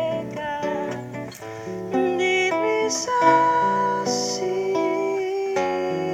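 Acoustic guitar playing with a woman singing along into a microphone, both amplified through a small PA speaker; she holds a long note near the middle.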